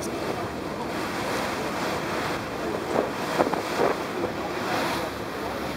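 Wind buffeting the microphone over the steady rush of choppy sea water, with a few short louder gusts about three seconds in.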